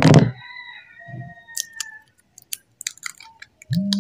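Clear plastic shrink-wrap seal on a skincare bottle being cut and peeled off by hand: a sharp crackle at the start, then scattered crinkles and clicks. Two short low tones come in near the end.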